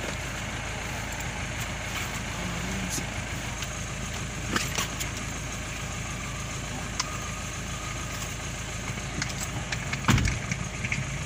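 Car engine idling steadily, heard from inside the cabin with a door open, with a few light knocks from luggage being handled and a louder thump about ten seconds in.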